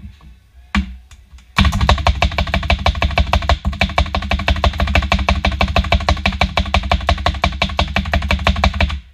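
Rapid, even clacking of a hand-operated plunger food chopper being pounded to mince garlic, about ten strokes a second. It starts abruptly about a second and a half in and stops just before the end.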